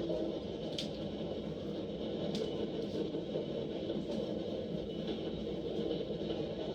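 Freight train passing close by: a steady rumble with a few short clicks.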